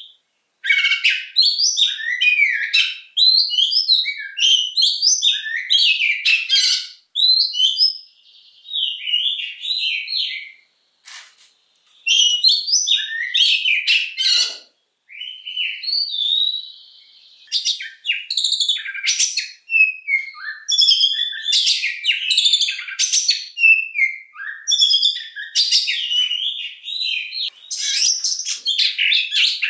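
Oriental magpie-robin singing a long, varied song of quick chirps, trills and whistles, broken by a few short pauses, with a couple of steady held whistled notes.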